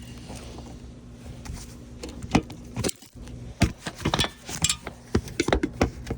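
Brittle asphalt roof shingles being pried up by hand: a string of sharp clicks, cracks and scrapes that begins about two seconds in and grows busier toward the end.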